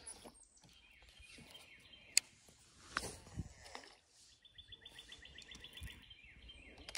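A small bird trilling in the second half, a quick run of short, evenly spaced high notes, over faint outdoor background. Two sharp clicks about two and three seconds in.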